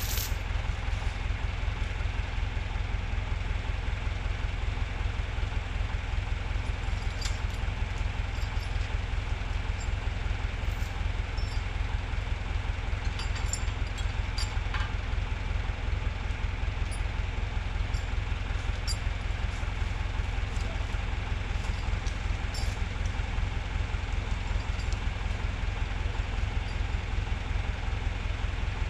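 Tractor engine running steadily at low revs, an even low drone with a fine, regular firing pulse, while logs are hooked up for skidding. A few light clicks and ticks come through in the middle.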